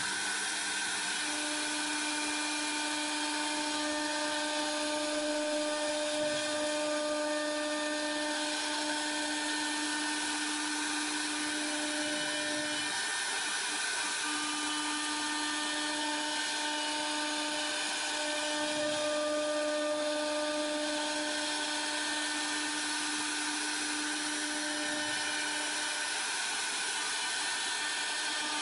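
A CNC router's 3 kW air-cooled spindle running steadily while carving hardwood: a high-pitched whine over a steady hiss. The whine breaks off for about a second midway, then returns.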